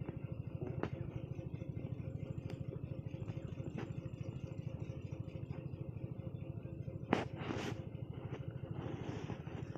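A small engine running steadily in the background with a fast, even pulse. Over it come occasional sharp metal clicks, with the loudest knock about seven seconds in and a short scrape after it, from a spanner and valve-spring parts handled on an engine cylinder head.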